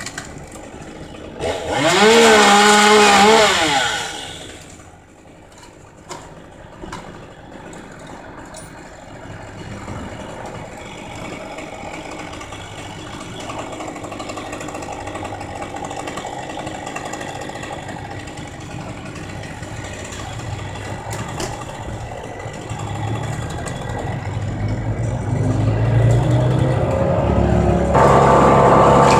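A chainsaw revs through a short cut about two seconds in. After that an engine runs steadily in the background, growing louder and settling into a loud steady run near the end.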